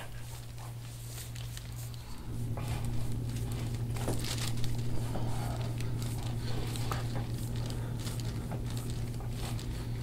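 A steady low hum, louder from about two seconds in, under faint crinkling, rustling and small clicks as an elbow presses and shifts on an oiled bare back on a padded treatment table.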